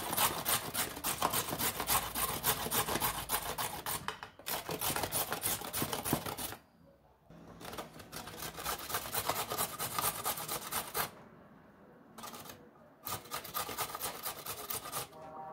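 A carrot grated by hand on a stainless steel box grater: quick, rhythmic rasping strokes, stopping briefly a few times.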